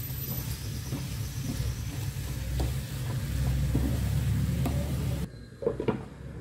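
Chopped banana flower being stirred through a hot pan of frying masala with a spatula: a low sizzle and soft scrapes of the spatula over a steady low hum. About five seconds in the sizzle cuts off and a glass lid is set on the pan with a few light clinks.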